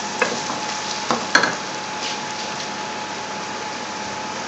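Chopped onions sizzling in hot oil in an aluminium pot, stirred with a wooden spoon that knocks lightly against the pot a few times in the first second and a half.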